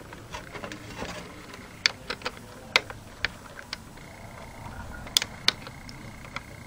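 Irregular sharp clicks and light knocks of plastic and metal parts being handled as an Xbox 360's disc drive is set back into the console and its two cables are plugged in.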